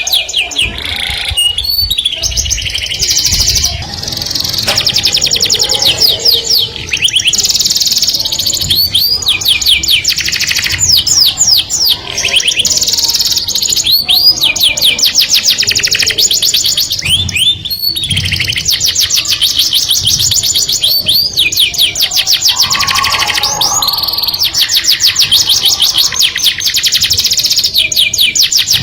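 Canary singing a long, continuous song of fast trills and rolls, the runs of rapid notes changing every second or two with only brief breaks.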